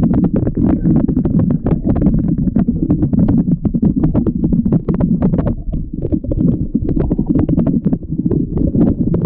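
Waterfall water crashing close to the microphone: a loud, muffled rumble with constant crackling splashes.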